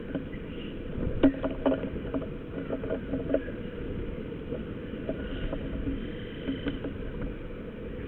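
Sharp taps and knocks from Iberian magpies pecking at a chicken carcass and landing on the feeder, bunched between about one and three and a half seconds in, over a low steady rumble.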